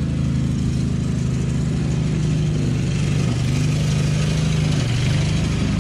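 A vehicle engine idling steadily, a low, even running sound that holds the same pitch throughout.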